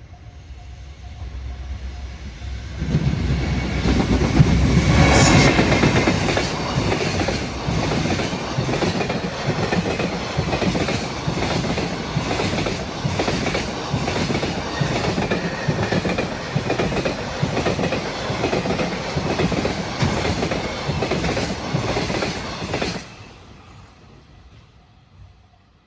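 A freight train hauled by a JR Freight EF210 electric locomotive passes close by. It swells as it approaches and is loudest as the locomotive goes past a few seconds in. Then comes a long steady clickety-clack of wagon wheels over the rail joints, which drops away suddenly about 23 seconds in as the last wagon clears and then fades.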